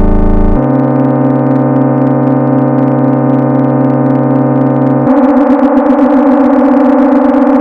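Computer-generated drone made by summing many sine waves of different frequencies and amplitudes in Desmos: a steady chord of pure tones that jumps to a new chord about half a second in and again about five seconds in. The second change drops the low tones and leaves a wavering, beating cluster.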